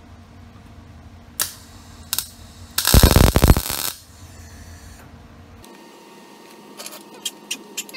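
MIG welder tacking horseshoe steel: two short arc blips, then about a second of loud, steady crackling arc around three seconds in. A few faint clicks follow near the end.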